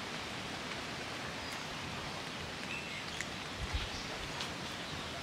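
Steady outdoor background hiss with a few faint scattered clicks and ticks from kittens eating raw meat at a plastic tray.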